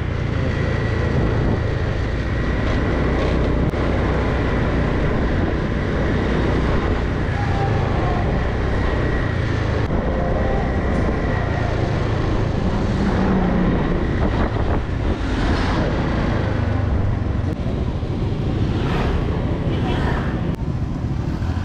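Wind buffeting the microphone on a moving motorbike, over a steady low rumble of the bike's engine and road noise.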